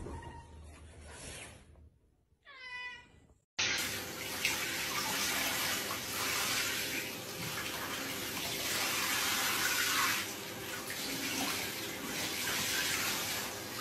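Handheld shower head spraying water over a wet cat in a bathtub: a steady hiss of running water that starts suddenly about three and a half seconds in.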